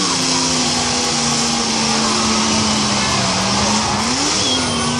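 Demolition derby car engine running at high revs, its pitch held steady and briefly rising and falling again about four seconds in, over a steady background din.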